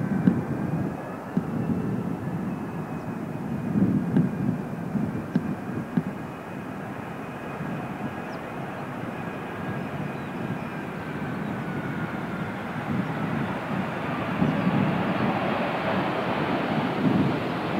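Heavy twin-engine or four-engine jet airliner passing. Its engines' whine slowly falls in pitch, and a broad engine rush builds over the last few seconds.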